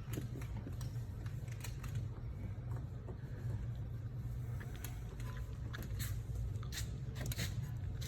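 Scattered light clicks, taps and small scrapes of tools and parts being handled during brake and hub work, over a steady low hum.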